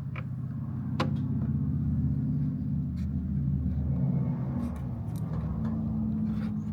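A low, steady motor rumble, louder for the first few seconds and shifting in pitch near the end, with a few sharp clicks.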